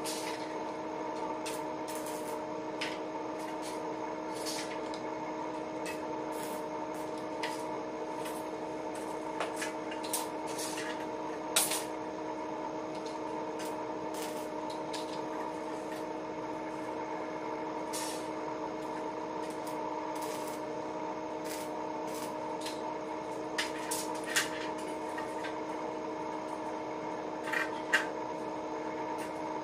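Steel flat bars clinking and knocking as they are laid and shifted by hand in a window-grille frame, a dozen or so short sharp strikes scattered over a steady electrical hum.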